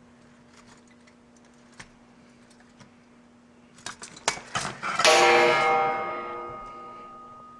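Light clicks of metal toaster parts being handled, then a metal piece knocks and rings out about five seconds in. The ring dies away over about two seconds.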